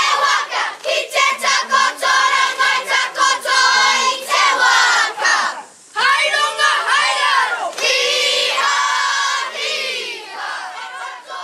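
Children's kapa haka group chanting and calling out in unison, many young voices together with pitch rising and falling. The chant breaks off briefly about five and a half seconds in, then runs on.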